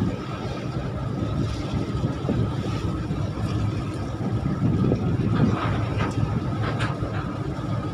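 Tugboat's diesel engine running steadily, a low rumble with a faint steady high tone, as the tug pushes a bulk carrier against the berth.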